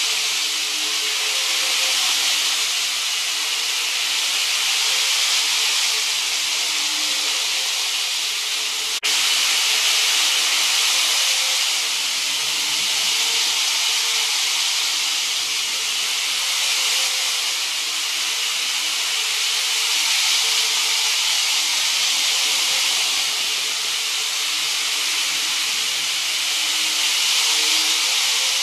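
Model Shinkansen train running on a plastic elevated slab-track viaduct: a steady whirring hiss of its motor and wheels, with a faint wavering hum underneath. A single click about nine seconds in.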